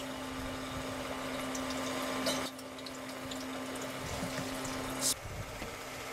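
Distilled diesel-fraction oil trickling from a copper tube into a plastic jerry can, with a steady hum underneath and a few light clicks. A brief rustling noise sounds about five seconds in.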